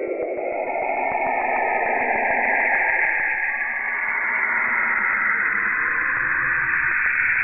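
Steady static-like electronic noise, like a radio tuned between stations, rising in pitch during the first second and then settling into a continuous hiss.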